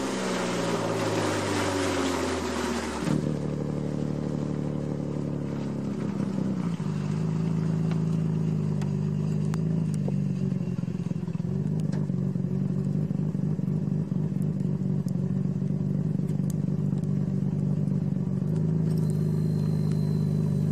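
Nissan Skyline GT-R R33's twin-turbo straight-six through an HKS Hi-Power exhaust, its revs falling as the car slows, under a rushing hiss that stops about three seconds in. The engine then idles steadily.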